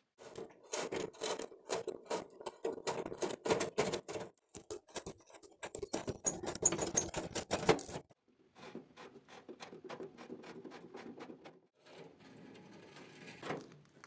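A screwdriver turning rusty screws in an old electric heater's dusty sheet-metal casing makes dense, rapid clicking and scraping for about the first half. Softer, quieter rasping follows in two shorter stretches, with brief gaps between them.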